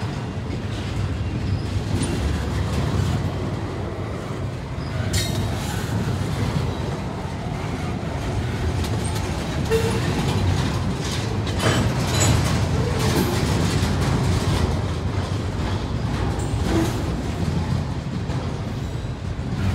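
Double-stack intermodal train's container well cars rolling past: a steady low rumble of steel wheels on rail, with a few sharp clanks along the way.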